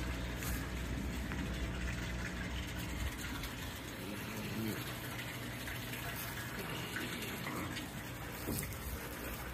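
Water from a pump outlet running steadily into a tub, with a few brief rustles of shade cloth being handled.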